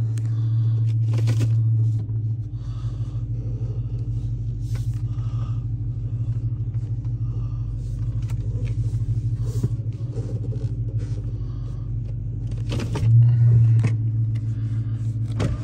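5.7-litre Hemi V8 of a 2012 Dodge Challenger R/T running at low speed, heard from inside the cabin as a steady low drone. It swells briefly at the start and again about 13 seconds in.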